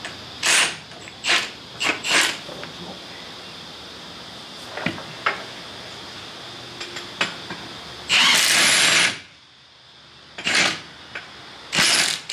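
Cordless impact wrench running wheel nuts onto a rear wheel hub in short bursts: three or four quick bursts in the first couple of seconds, a longer one of about a second past the middle, then a couple more short ones near the end.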